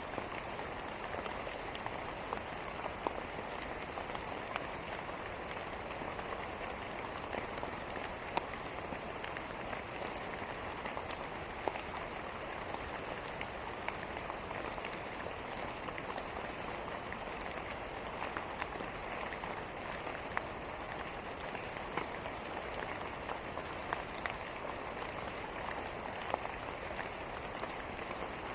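Steady rain falling, with sharper ticks of single drops hitting a surface scattered throughout.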